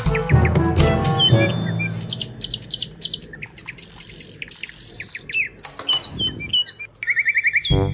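Birds chirping in quick, short calls that glide up and down, over background music that fades out in the first two seconds and comes back near the end.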